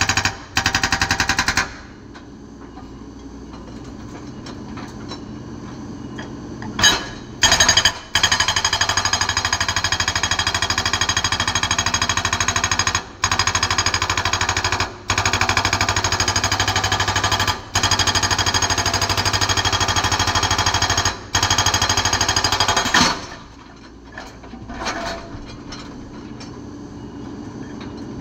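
Excavator-mounted hydraulic rock breaker hammering in rapid repeated blows, in long runs with a few short breaks, over the excavator's steady engine. The hammering stops briefly just after the start and again near the end, leaving the engine running quieter.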